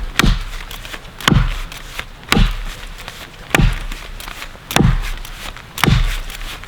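Axe chopping a felling notch into a standing tree, alternating top and bottom cuts: six steady strikes about one a second, each a sharp crack with a dull thud into the trunk.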